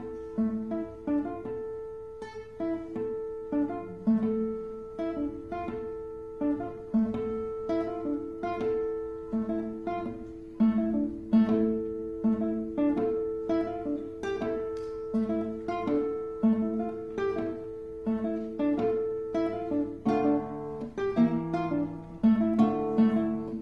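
Two classical guitars playing: a steady run of plucked single notes, each left to ring, over a note that keeps sounding. About twenty seconds in, lower notes come in and the playing grows busier.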